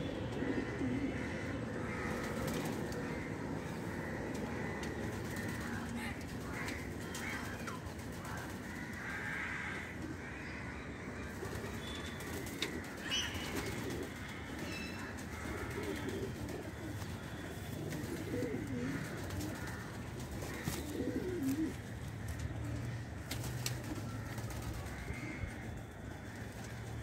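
Pigeons cooing now and then, soft low calls, over a steady low hum.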